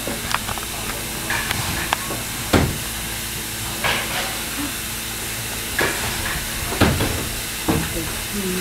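Steam locomotive pulling an open passenger car: a steady hiss of steam and running noise, broken by a few sharp knocks.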